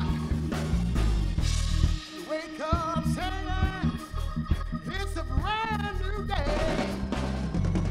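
Live gospel band music: keyboard, bass and drums playing an upbeat groove with an arching melodic line over it. The bass drops out briefly about two seconds in, then comes back.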